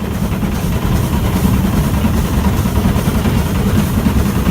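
Steady low rumble of a railway train, heard from close by.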